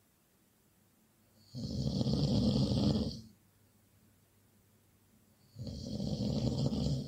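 Loud snoring: two long snores about four seconds apart, each a low rumble with a hissing edge on top.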